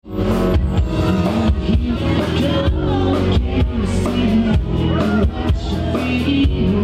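Live rock band playing loud: electric guitar, electric bass and drums with steady beats, and a singing voice over them.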